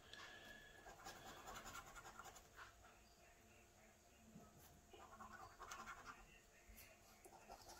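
Faint scratching of a coin rubbing the latex coating off a scratchcard. It comes in two spells with a lull of about a second and a half in the middle.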